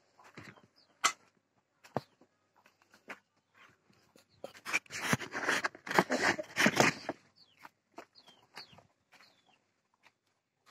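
Handling noise in a wooden chicken coop during egg collecting: a few sharp clicks, then a dense burst of rustling and knocking lasting a couple of seconds in the middle. Near the end come a few short, high, falling chirps, typical of chickens in the coop.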